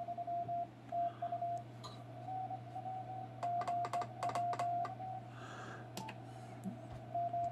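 Morse code tone of about 700 Hz from a ham transceiver, keyed on and off in dots and dashes, with the sharp clicks of a Kent hand Morse key around the middle. It pauses for about two seconds and starts again near the end, over a steady low hum.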